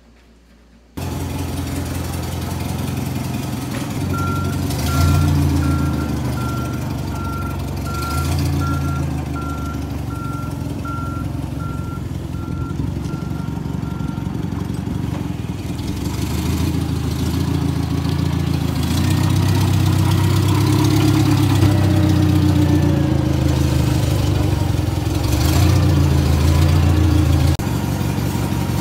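Propane-fuelled Clark GC30S forklift engine running and revving up and down as the forklift travels under load. From about four seconds in, a warning beeper sounds repeatedly for roughly ten seconds.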